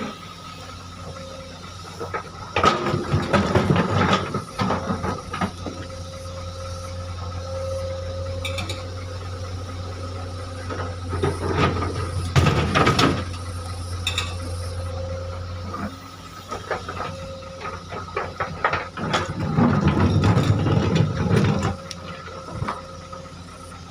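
Excavator's diesel engine running steadily, with three spells of loud clattering and scraping as boulders are handled and loaded into a dump truck.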